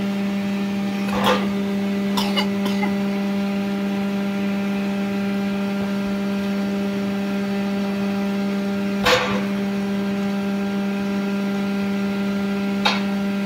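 Log-splitting machine's motor-driven hydraulic power unit running with a steady hum, with a few knocks as logs are handled on its steel bed, the loudest about nine seconds in.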